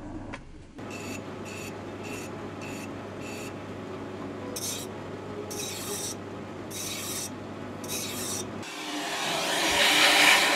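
A hand file rasping against the rim of a cast iron flywheel spinning in a Myford ML7 lathe, over the lathe's steady motor hum: quick strokes about twice a second at first, then slower, longer strokes. About eight and a half seconds in, this gives way to the rising rush of a vacuum cleaner sucking up the cast iron shavings.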